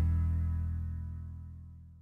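The last chord of an indie rock song left to ring out, its low notes strongest, fading steadily away to silence as the track ends.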